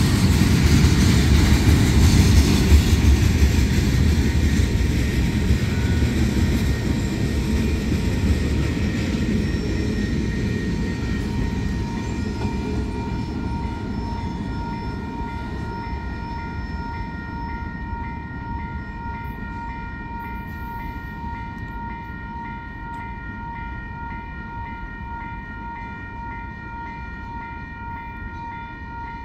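Freight train cars rolling past on the rails, a heavy rumble that fades steadily as the end of the train passes and moves away. A grade-crossing bell rings steadily, coming through clearly from about halfway in as the train noise dies down.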